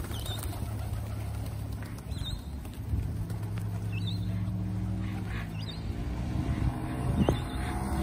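A motor vehicle's engine drones steadily on the road, growing louder near the end, while a bird gives several brief high chirps, one every second or two.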